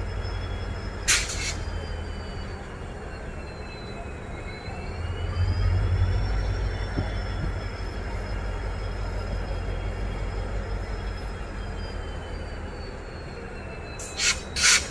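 An Indian Railways WDP-4 diesel locomotive's EMD two-stroke 16-cylinder 710 engine running with a steady low hum, which swells louder around six seconds in. A faint high whine drifts slowly up and down in pitch over it. There are short bursts of hiss about a second in and twice near the end.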